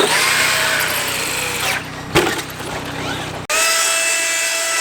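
High-pitched whine of a large RC truck's electric motor running at speed, with a single sharp knock about two seconds in.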